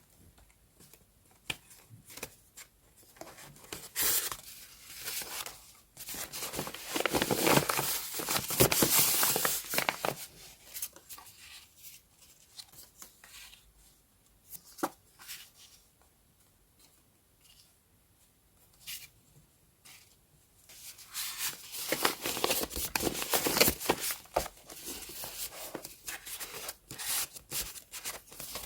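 Close-up paper sounds: paper or tape being torn and rustled by hand, in two longer bouts with a quiet stretch of small taps and clicks in between.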